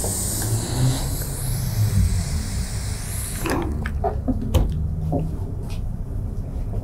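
Hiss of steam from a hose-fed steam iron pressing fabric, lasting about three and a half seconds over a low steady hum. After it stops, a few light knocks and rustles of the fabric being handled.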